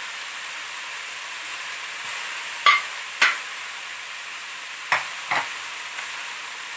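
Meat, onions and tomatoes sautéing in hot oil in a pot, with a steady sizzle. A spoon stirring the pot knocks against it four times, in two pairs about half a second apart.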